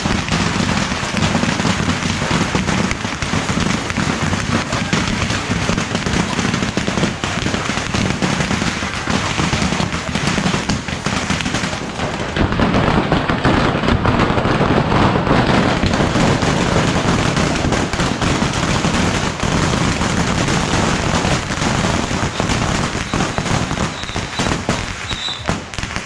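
Massed bottle rockets and firecrackers of a beehive fireworks barrage going off in a dense, unbroken crackle, a little louder for a few seconds about halfway through.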